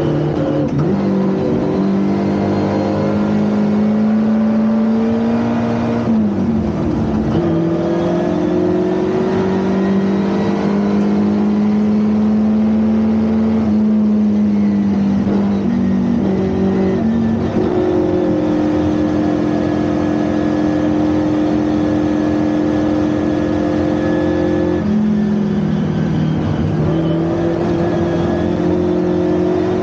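Historic Ford Anglia 1200 race car's engine running hard under racing load. Its pitch climbs, then jumps down or up in sudden steps several times, as at gear changes.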